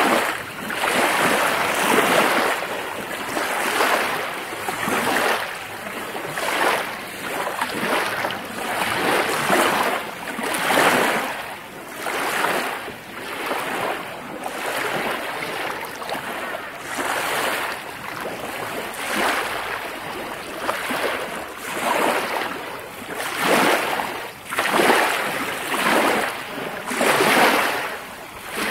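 Small lake waves lapping and splashing against the shore, a fresh surge every second or two.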